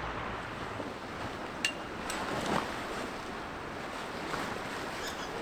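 Steady rushing outdoor background noise with a few light clicks and taps.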